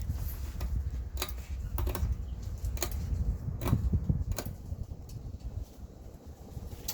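Casablanca Gulf Coast ceiling fan running, its moving air buffeting the microphone as a steady low rumble, with scattered sharp clicks about seven times.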